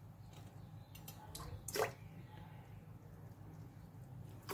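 Faint drips and small splashes of vinegar poured from a bottle into a steel tablespoon and into a pot of thin cake batter. The clearest splash comes a little under two seconds in, over a low steady hum.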